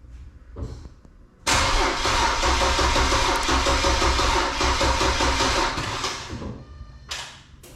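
BMW N54 twin-turbo straight-six cranking on its starter for about five seconds without firing, then stopping; cranking to prime oil to the newly fitted turbochargers before the first start. Two brief noises follow near the end.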